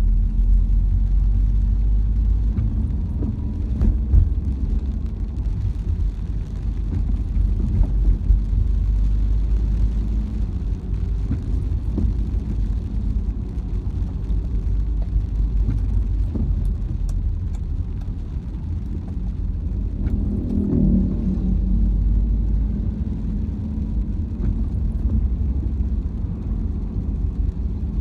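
Car driving along a road, heard from inside the cabin: a steady low engine and road rumble, with a brief louder swell about twenty seconds in.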